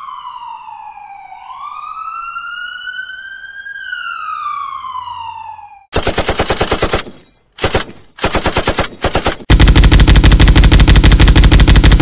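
Ambulance siren sound effect: one wail that falls, swoops back up and falls again. Then, about six seconds in, machine-gun fire in three short bursts. From about two seconds before the end, a minigun fires continuously at a very high rate, the loudest sound here.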